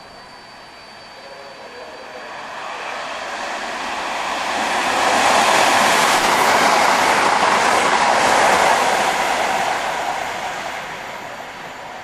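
Class 166 diesel multiple unit running through a station at speed. Its noise swells as it approaches, is loudest for a few seconds as it passes, then fades away.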